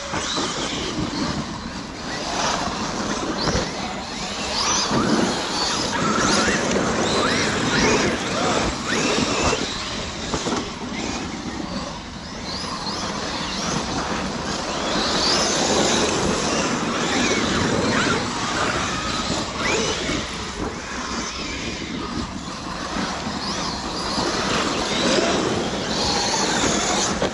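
Large brushless RC cars driven hard, their motors whining up and down in pitch with the throttle, over a constant dense rush of noise with frequent knocks.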